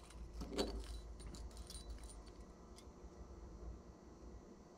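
Faint small metallic clicks and clinks as a split ring on a metal spoon lure is worked with split-ring pliers.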